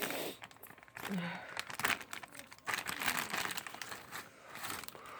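Plastic packaging of a Happy Meal toy being crinkled and torn open by hand, in irregular scratchy rustles.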